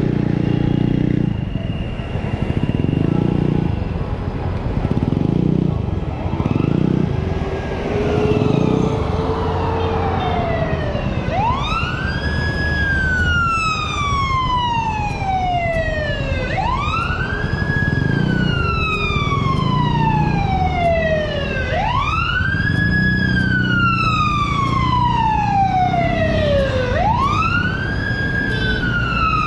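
Road traffic, with scooter and car engines passing. From about a third of the way in, an ambulance siren wails: each sweep rises quickly, then falls slowly, repeating about every five seconds.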